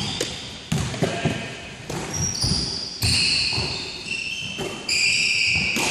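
Basketball dribbled on a hardwood gym floor, a series of thumps, with sneakers squeaking sharply on the floor several times in the middle and near the end, in a large echoing sports hall.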